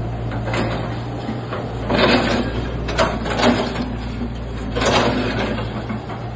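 Hitachi hydraulic excavator working: its diesel engine runs with a steady low hum. Over it come several short bursts of clatter and scraping with sharp clunks, about two, three, three and a half and five seconds in.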